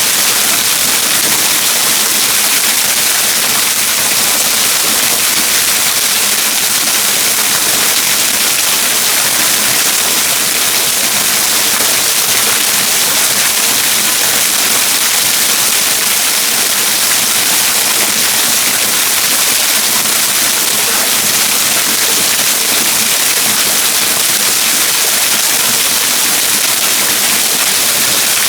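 Waterfall rushing steadily: a loud, even hiss of falling water that does not change.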